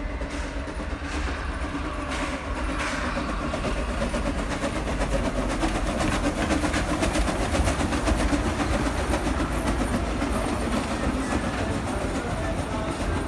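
Train rolling along heard from on board: a steady rumble with wheels clattering over the rails and a few knocks from the cars in the first few seconds.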